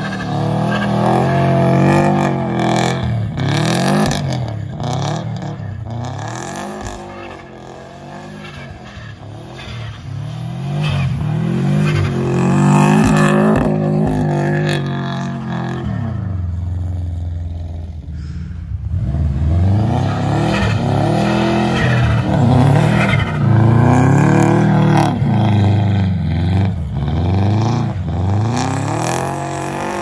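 1991 Subaru Legacy Turbo's turbocharged flat-four engine revving up and down again and again as the car drifts on snow under throttle. It goes quieter for a couple of seconds past the middle, then revs hard again.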